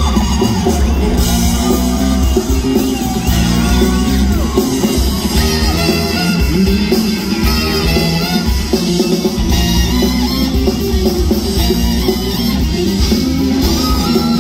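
Live funk-rock band playing loud: brass horn and saxophone over electric guitar, bass and a drum kit.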